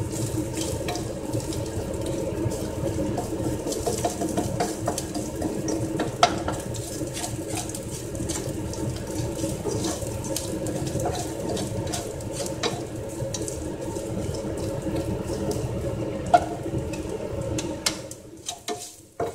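Kitchen range-hood exhaust fan running with a steady whoosh and hum, over which a couple of sharp knocks sound; the fan noise drops away about a second before the end.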